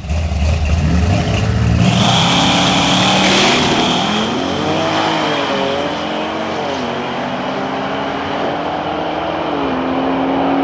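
A car engine running, its pitch rising and falling a few times as it is revved, then settling to a steady drone.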